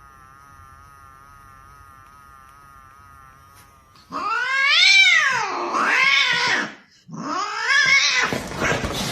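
Domestic cat yowling: two long, drawn-out calls that sweep up and down in pitch, starting about four seconds in.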